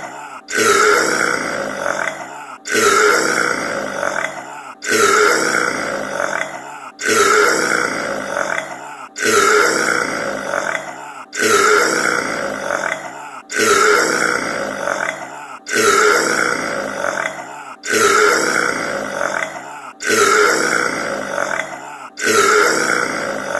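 A man's loud, drawn-out burp looped end to end. The identical burp restarts about every two seconds, each time starting suddenly at full strength and trailing off.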